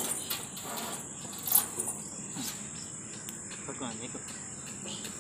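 Steady high-pitched chirring of insects, crickets by their sound, with a light tap about one and a half seconds in and a few faint voice sounds near the middle.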